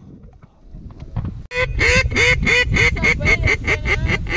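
Duck quacking in a fast run of over a dozen short quacks, starting suddenly about a second and a half in and speeding up, each quack dropping in pitch. Wind rumbles on the microphone underneath.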